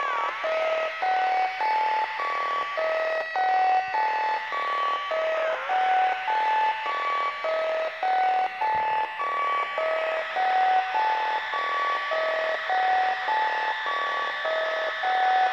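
littleBits synth chain (oscillator, envelope and delay modules) playing a looping pattern of short electronic beeps, about three notes a second, over a steady hiss. The pitch swoops briefly near the start and again about five seconds in as the delay knobs are turned.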